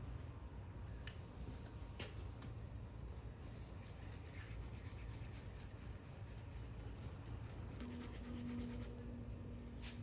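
Faint rubbing and scraping of a stick stirring two-part JB Weld plastic-weld epoxy, over a low background rumble. A faint steady hum comes in near the end.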